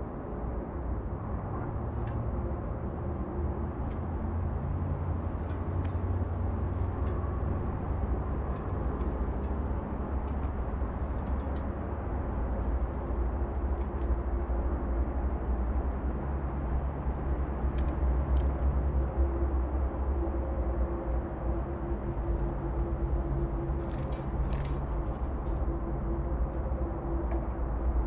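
Steady low rumble of distant road traffic, with a few faint high bird chips and light clicks scattered through it.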